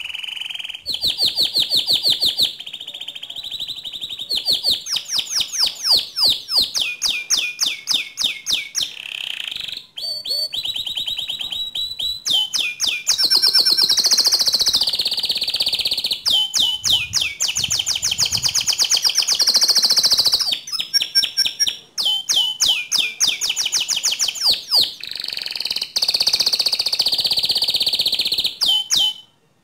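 Domestic canary singing a long, continuous song of fast trills and rolling repeated phrases, loud and high-pitched. It breaks off abruptly near the end.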